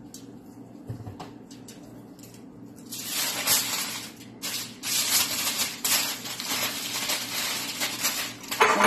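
Aluminium foil crinkling and crackling as it is folded tightly around a rack of raw ribs. It starts about three seconds in and comes in loud, irregular bursts.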